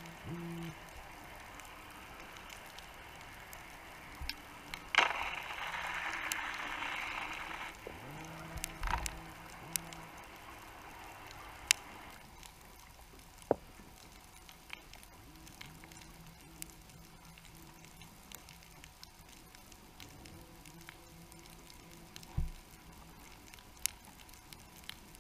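Underwater ambience picked up through a GoPro's housing: scattered sharp clicks and ticks, a low hum that comes and goes, and a stretch of hiss about five seconds in.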